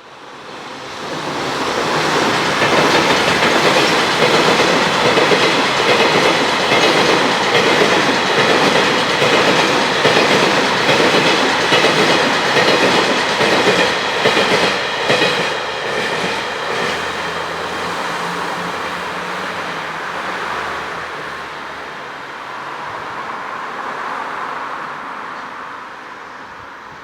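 JR Freight electric locomotive and freight wagons passing close by, the wheels clicking over the rail joints in an even rhythm. The sound builds over the first two seconds, stays loud for about fourteen seconds, then drops to a lower, steadier rumble that fades near the end.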